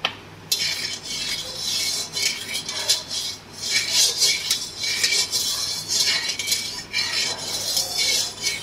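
Spatula scraping and stirring around a large aluminium kadai of hot mustard oil with a pinch of salt in it, in quick, irregular strokes that start about half a second in.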